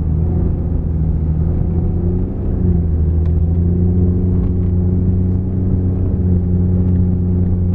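Lifted Jeep's engine running under load as the vehicle drives on snow, heard from inside the cab. The engine note dips briefly about two seconds in, then climbs and holds steady.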